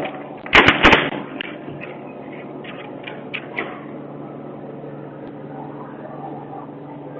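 Two loud, sharp bangs about a third of a second apart near the start, then a steady low hum with a few faint clicks.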